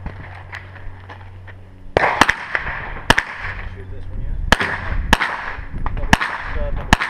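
Rock River Arms 9mm carbine firing about eight shots starting about two seconds in, singly and in quick pairs at uneven spacing.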